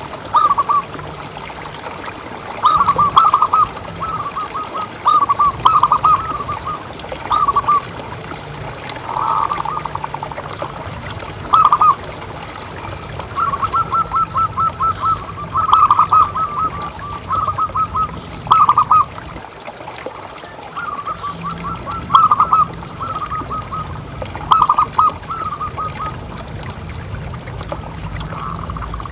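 Zebra doves (perkutut) cooing in short bursts of rapid staccato notes every second or two, some drawn out into longer trills.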